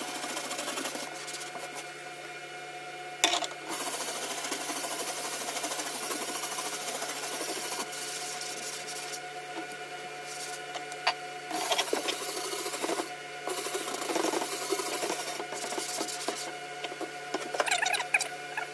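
Stiff-bristled brush scrubbing liquid adhesive remover into a boat's textured non-skid deck: continuous back-and-forth scrubbing, with a sharp click about three seconds in.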